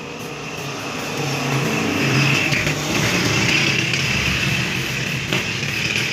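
A motor vehicle's engine running close by, growing louder over the first two seconds and then slowly fading.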